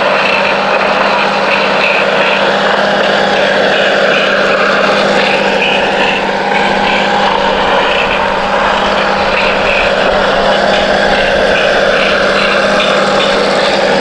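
Remote-control toy truck's small electric motor running steadily: a constant hum with a whirring, fluttering gear noise over it.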